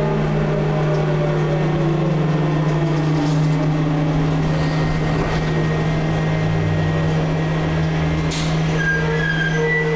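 Trolleybus heard from inside the passenger cabin: a steady low electrical hum, with a motor whine falling slowly in pitch over the first few seconds. A single sharp click comes about eight seconds in.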